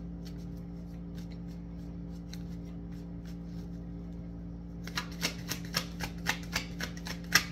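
A deck of tarot cards being shuffled by hand. There are faint scattered card clicks at first, then about two seconds from the end a quick run of sharp card snaps, over a steady low hum.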